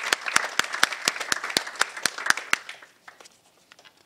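A small audience applauding: dense clapping that dies away about three seconds in, leaving a few stray claps.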